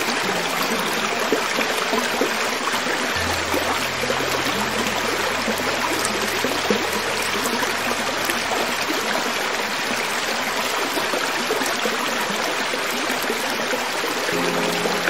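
Creek water flowing over rocks, a steady rushing babble. Soft low held notes of background music sit underneath from about three to nine seconds in, with new notes entering near the end.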